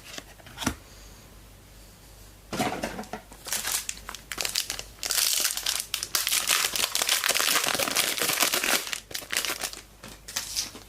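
A trading card pack's plastic wrapper being torn open and crinkled by hand. Scattered crackles at first, then a dense, loud stretch of crinkling in the middle that tails off near the end.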